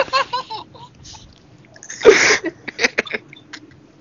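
Voices laughing: a quick choppy run of laughs at the start, then a loud breathy laugh or shriek about two seconds in, followed by a few short clicks.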